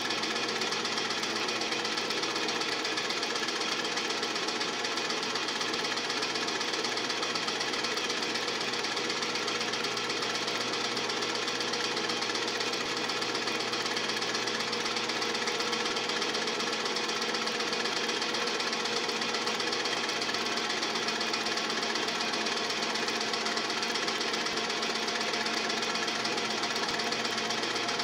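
Film projector running, with a steady rapid mechanical clatter over a constant hum.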